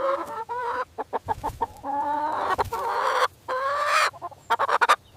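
Chicken calling: three drawn-out, pitched calls, the longest in the middle, with short clucks between them.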